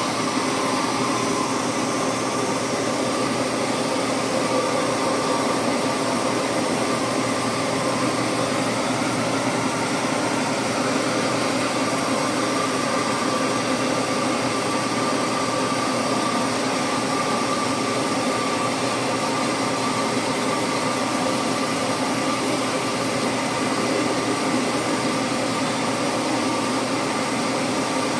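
Horizontal boring mill running, its boring bar taking a light cut of about five thousandths a side through the weld-repaired pin bore of a Caterpillar 950 Z-link. A steady machine noise with a constant whine.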